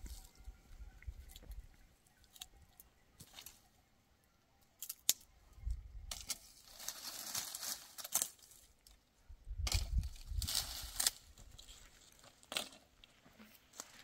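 Dry brush crackling and rustling in bursts as it is handled and gathered, with scattered sharp snaps and a few low thuds.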